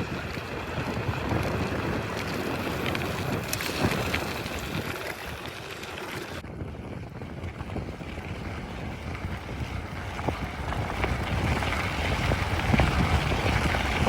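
Wind buffeting the microphone while riding a bicycle, a steady rumbling rush of noise that changes abruptly about six seconds in.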